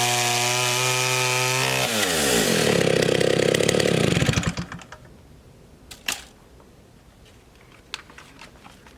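Vintage STIHL 08S two-stroke chainsaw engine idling steadily, then switched off about two seconds in: the revs fall and it rattles to a stop by about four and a half seconds. A few faint clicks follow.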